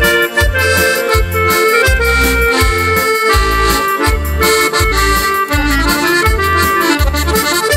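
Instrumental break in a Slovak folk song medley: a melody played over low bass notes that keep a steady, regular beat.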